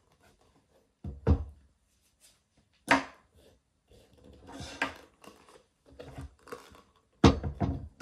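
REGAL double monk-strap dress shoes being handled and set down on a wooden tabletop: a knock about a second in, another near three seconds and a double knock near the end, with softer knocks and rustling in between.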